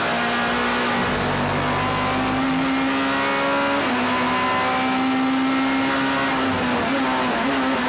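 Toyota Auris S2000 touring car's engine, heard from inside the cockpit, pulling under throttle with its pitch climbing steadily. About four seconds in the pitch drops at once, as at an upshift, then climbs again. Near the end it falls and wavers as the car slows.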